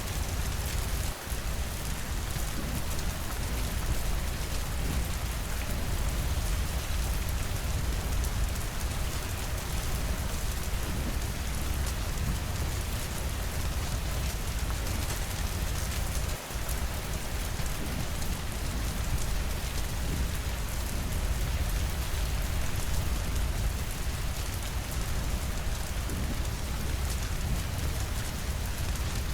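Steady rainfall, an even hiss of falling rain over a deep low rumble, dipping briefly twice.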